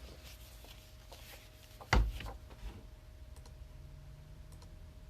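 Scattered light clicks and taps, with one loud sharp knock about two seconds in, over a faint steady hum.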